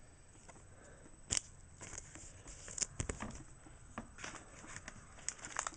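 Pokémon trading cards being handled: light rustling and scattered small sharp clicks, the sharpest a little over a second in.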